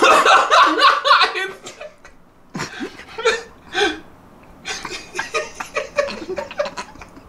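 People laughing and chuckling in three bursts. The first, at the start, is the loudest.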